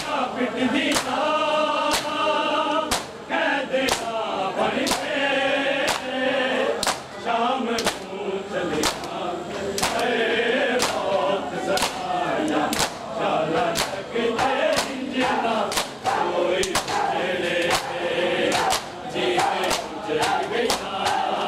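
Men chanting a noha in chorus, over the rhythmic slaps of open hands beating on bare chests in matam, about two slaps a second.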